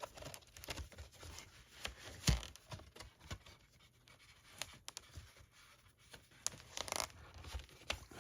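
Paper and card being handled: rustling and scraping with a few light knocks as record sleeves and packaging are moved about.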